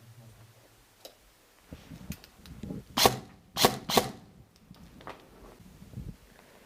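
Three loud, sharp cracks about half a second apart, with shuffling, rustling and small clicks around them.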